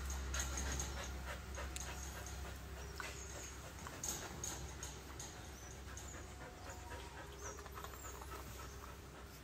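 Husky panting quietly.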